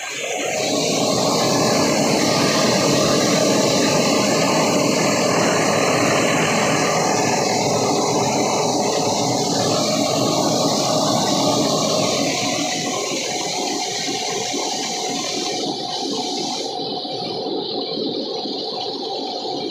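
Small tractor-driven rice mill running: a loud, steady rushing of rice grain and air moving through the huller, polisher and husk blower fan. It eases slightly about twelve seconds in.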